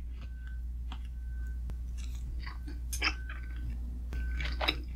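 Close-miked chewing of soup dumplings (xiaolongbao), with scattered wet mouth clicks and smacks over a low steady hum.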